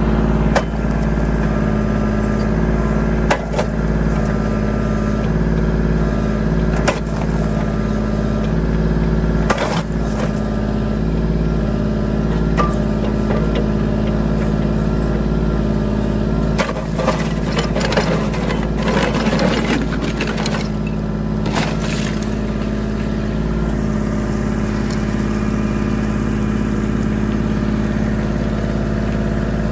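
Kubota tractor's diesel engine running steadily while its backhoe bucket pushes down on pond ice. Scattered sharp cracks and crunches of the ice breaking, coming thickest a little past halfway.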